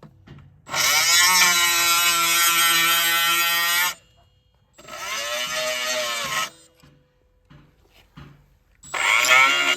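Electric power tool motor run three times, spinning up to a steady high whine each time: a long run of about three seconds, a shorter one, and a third starting near the end.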